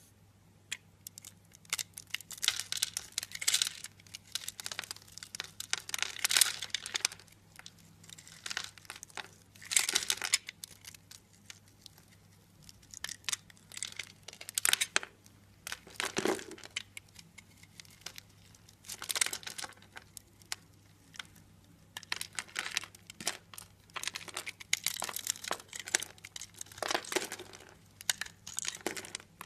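Knife cutting through dry, crunchy bar soap: repeated crackly, crumbling cuts, one every second or two.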